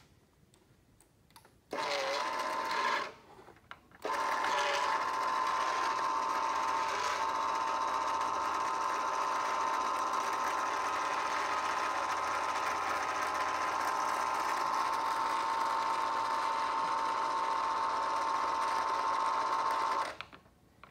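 Hy-Gain CD-45II antenna rotator's motor and gearbox running with a steady whine: a short run of about a second, then after a pause a long steady run of about sixteen seconds, turning the beam antenna on top.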